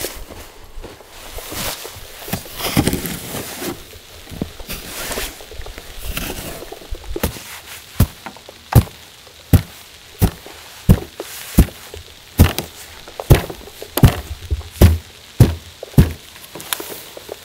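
Rustling of gear being handled, then a regular series of about a dozen sharp thuds, roughly one every 0.7 seconds, starting about halfway through.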